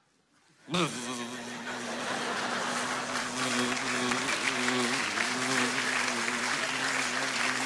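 Audience breaking into applause and cheers about a second in, growing louder over the next couple of seconds, with steady music tones playing underneath.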